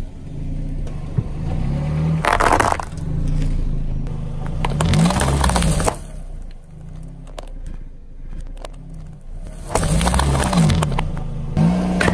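Car engine running as a car tyre rolls slowly over things on asphalt, with three loud crunching bursts as items are crushed under the tyre: about two seconds in, around five seconds, and again near the end.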